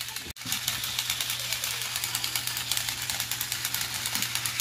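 Remote-controlled toy boxing robot running: its small electric motor and plastic gears make a rapid, even clatter over a steady hum as its arms punch.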